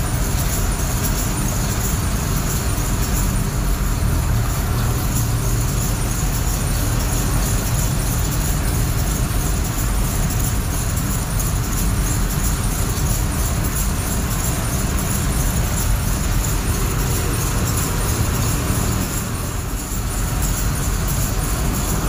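Steady engine and road noise of a vehicle driving, heard from inside its cab.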